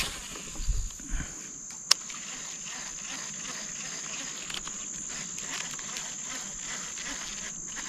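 Insects droning steadily at one high pitch, with a few soft knocks in the first second or so and one sharp click about two seconds in.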